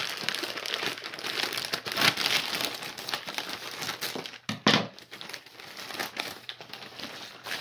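Plastic mailer bag crinkling and rustling as it is handled and cut open with scissors, with a louder crackle about halfway through.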